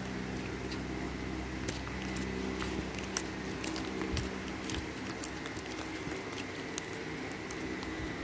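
Pink glitter slime squeezed and pulled between fingers, giving scattered small sticky clicks and pops over a steady background hum.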